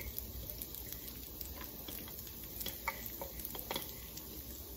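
Minced garlic sizzling gently in melting butter in a frying pan, with scattered small pops and crackles.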